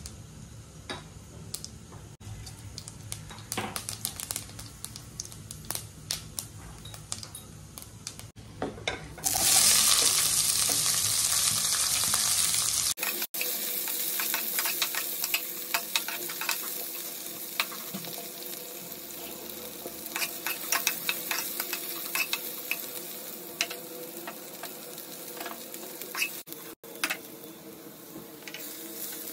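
Cumin, nigella, fenugreek and fennel seeds sizzling in hot oil in a kadai, stirred with a metal spoon that clicks against the pan. About nine seconds in, sliced onions go into the oil with a much louder sizzle, and they keep frying while the spoon stirs and scrapes them.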